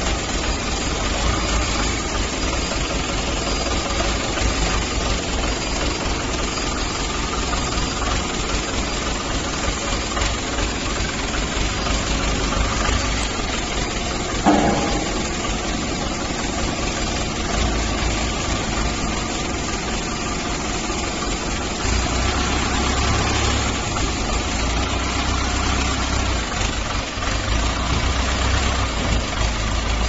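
Forklift engine running steadily under load, with one sharp knock about halfway through. The low rumble gets louder about two-thirds of the way through.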